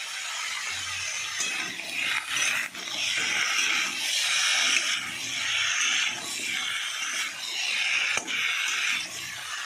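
Vegetables sizzling in a pan while being turned with a metal spatula. The hiss swells with each stroke about once a second, with a few sharp clicks of the spatula on the pan.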